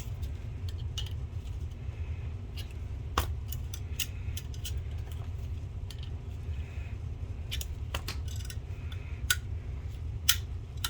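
Scattered light clicks and clinks of hard plastic and metal parts being handled on a workbench, over a steady low hum.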